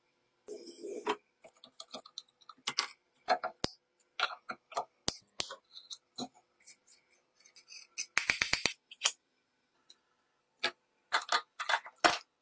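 Metal hand tools clicking, tapping and scraping on rusty metal parts: a string of short sharp clicks with silent gaps between them, a brief hiss about half a second in, and a quick run of five or six clicks about eight seconds in.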